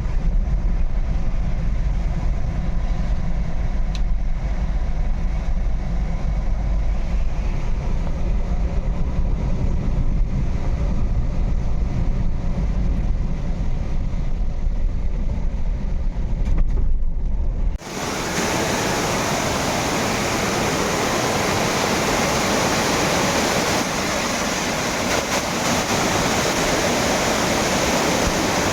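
A steady low rumbling noise, then an abrupt cut about eighteen seconds in to the loud, even rushing of a waterfall.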